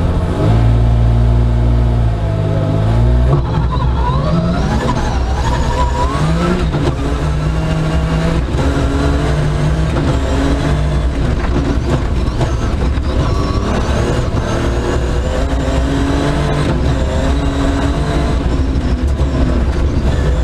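BMW M3 Compact rally car's engine under hard acceleration on a special stage. Its pitch climbs steeply and drops back with each quick upshift through the sequential gearbox.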